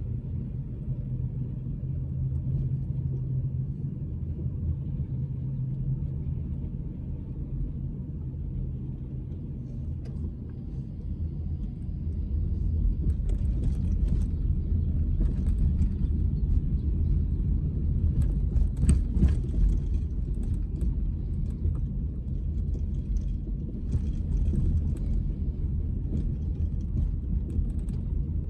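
Steady low rumble of a car on the move, road and engine noise heard from inside. In the second half it grows a little louder, with scattered brief clicks and rattles over it.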